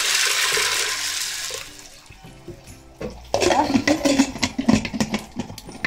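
Water pouring and splashing into an aluminium pressure cooker onto dried kidney beans, fading out after about two seconds. Just after three seconds, metal clinks and scrapes begin as the cooker's lid is fitted and handled.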